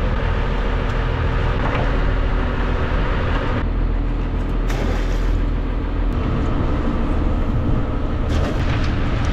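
Boat engine running steadily, a continuous low rumble with a faint hum.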